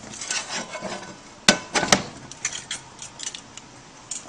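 Chicken pieces being pressed and turned in a dish of flour: uneven rubbing and scraping, with two sharp knocks about half a second apart, a second and a half in.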